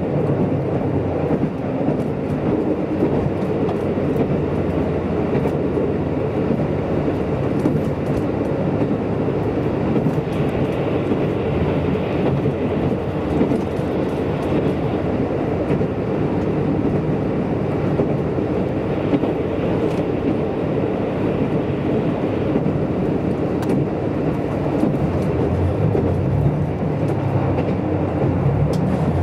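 KiHa 185-series diesel express railcar running at speed, heard on board: a steady rumble of engine and wheels on rail, with scattered clicks from the track.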